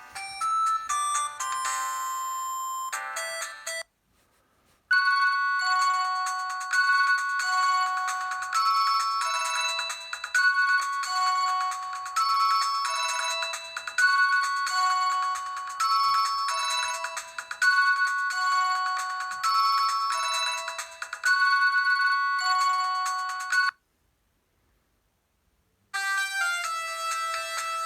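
Preloaded ringtones on a Huawei G7002 mobile phone, played one after another. One tune ends about four seconds in. After a short gap comes a melodic ringtone of about nineteen seconds built on a repeating phrase of high notes, then about two seconds of silence, and the next ringtone starts near the end.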